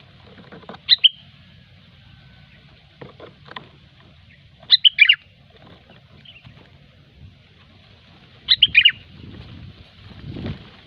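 Sooty-headed bulbul (kutilang) calling: three short bursts of quick, chirpy notes roughly every four seconds. It is a lure call of the kind played to attract bulbuls for trapping.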